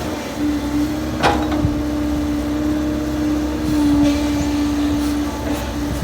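An engine running steadily with a held hum, and a single sharp knock about a second in.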